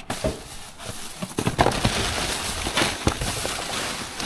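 Rubbish being rummaged through by a gloved hand: plastic bags and paper crinkling and rustling, with many small clicks and knocks as items are shifted.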